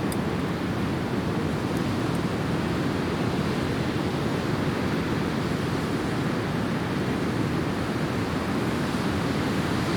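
Steady, even rushing noise, deepest in the low to middle range and unchanging, like running water or wind.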